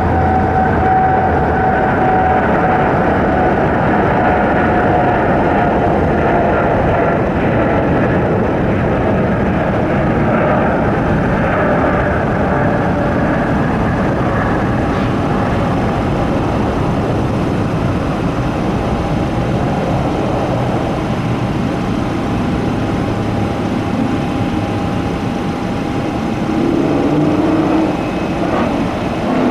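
Jet airliner engines running loud and steady, with a high whine that slowly falls in pitch.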